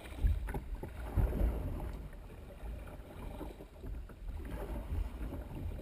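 Kayak paddle strokes splashing and water rushing along the kayak's hull, with irregular low rumbles of water and wind hitting the bow-mounted microphone.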